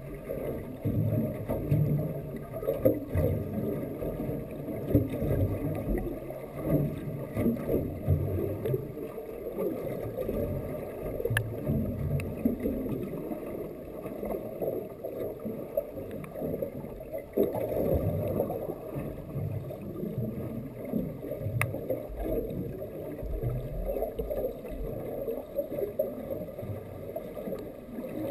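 Muffled underwater water noise: waves and swell sloshing and rushing around an action camera in its waterproof housing, with a few faint ticks.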